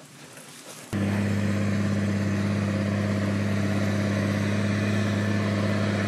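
A steady, low engine-like drone starts abruptly about a second in and holds at an even level.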